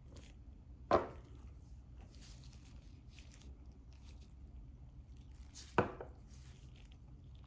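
Two sharp knocks about five seconds apart as a nail polish bottle is handled and set down on a hard tabletop, with faint rustling of gloved hands working the bottle and brush in between.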